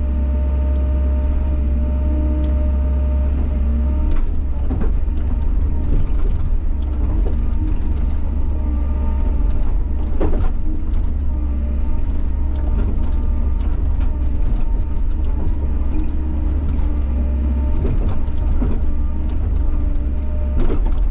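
Bobcat excavator's diesel engine working steadily under load, with a hydraulic whine, as the bucket rips through frozen ground. Sharp cracks and knocks come every few seconds as slabs of frost break loose, the loudest about halfway through.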